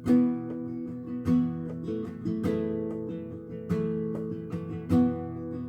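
Acoustic guitar strumming chords, with a strong downstroke every second or so and the strings ringing between strokes.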